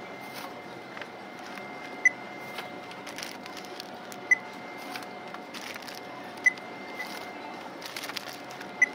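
Short high beeps about every two seconds, typical of a checkout barcode scanner reading items one by one, over a steady electrical hum.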